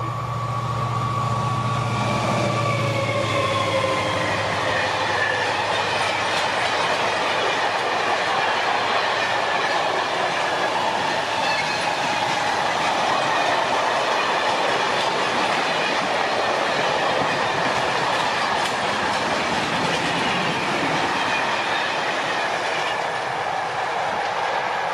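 Euro 4000 diesel-electric locomotive's engine hum fading away as it draws off, its pitched tones dropping slightly, then the steady rolling clatter of a long train of empty van-carrier flat wagons passing close by.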